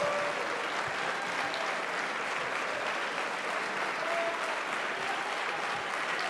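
Deputies in a parliamentary chamber applauding: steady clapping from many hands that holds at an even level throughout.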